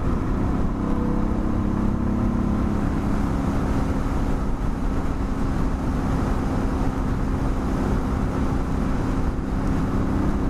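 Suzuki DR650's single-cylinder four-stroke engine running steadily while the motorcycle cruises at about 50 mph, with wind rushing over the microphone.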